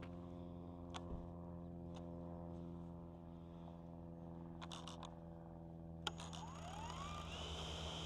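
DJI Air 3 drone starting up: a faint steady low hum with a few sharp clicks, then near the end a rising whine that levels off into a steady high tone as the motors spin up.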